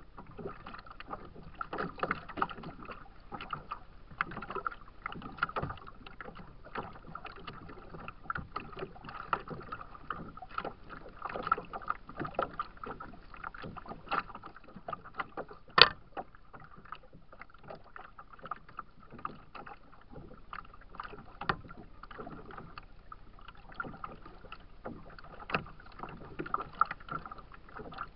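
Choppy lake water lapping and slapping against a kayak's plastic hull, heard close to the hull as an irregular run of small splashes and taps. One sharp knock about halfway through stands out as the loudest sound.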